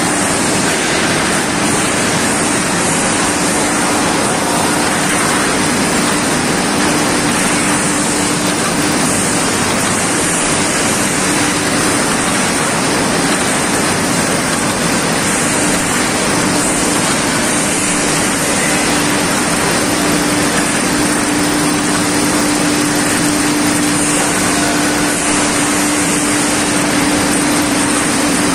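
ERW steel tube mill running: a steady, loud machinery noise from the roll stands and their drives, with an even hum and a high hiss that never change.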